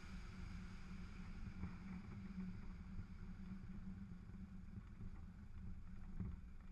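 Light aircraft's piston engine idling as it taxis, a faint steady low drone with some wind on the microphone. A short thump about six seconds in.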